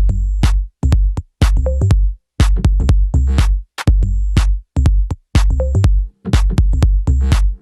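Electronic background music with a steady drum-machine beat, broken by short silent gaps.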